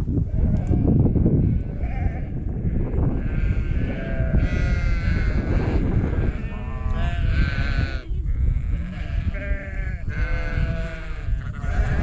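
Sheep bleating several times in wavering calls, over heavy wind rumble on the microphone.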